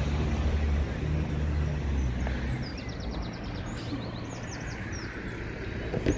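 A low, steady engine drone, fading out about two and a half seconds in, over outdoor ambience. A small songbird trills a couple of times near the middle.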